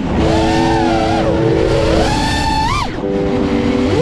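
Brushless motors of a 6S FPV quadcopter (2207, 2021Kv) whining, their pitch swooping up and down with the throttle: a short rise early on, then a longer climb that peaks and drops sharply near the end.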